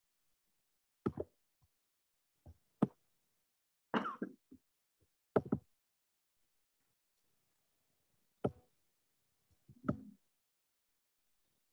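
About seven short knocks and clicks at irregular moments, as from things handled on a desk, picked up by a video-call microphone, with dead silence between them.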